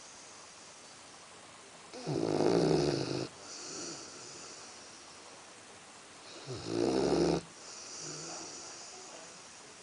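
A Labrador retriever snoring: two loud snores about four and a half seconds apart, each a little over a second long, with a softer breath out after each.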